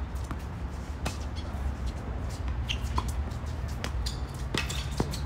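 Tennis balls struck by strings during a doubles rally: several sharp pops a second or so apart, over a steady low rumble.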